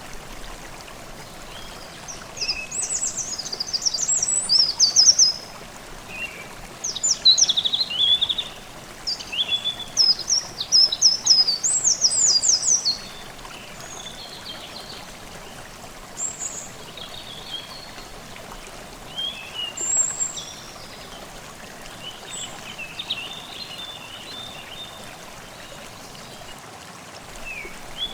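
Forest stream babbling steadily, with songbirds singing over it: loud phrases of quick, repeated high notes in the first half, then fainter, scattered calls.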